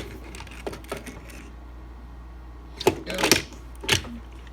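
Hard plastic toy figures handled and set down: a couple of light clicks, then a quick cluster of sharper plastic clacks about three seconds in and another near the end.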